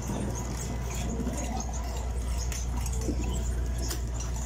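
Steady low drone of a squid-jigging boat's machinery, with faint scattered clicks and clinks on deck.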